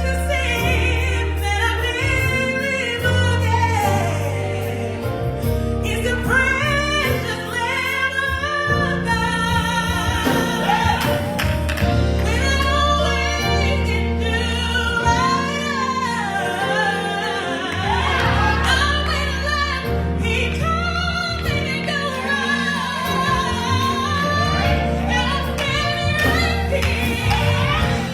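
Gospel choir singing with instrumental accompaniment, over a bass line whose held notes change every couple of seconds.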